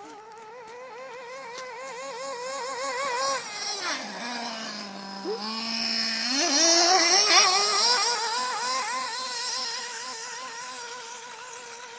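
Radio-controlled car's motor running at high revs with a rapidly wavering, revving note. About four seconds in it drops to a lower, steadier note for a couple of seconds, then revs back up and is loudest just past the middle before fading.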